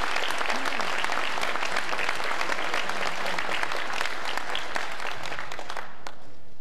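A large audience applauding: dense, steady clapping that stops abruptly near the end.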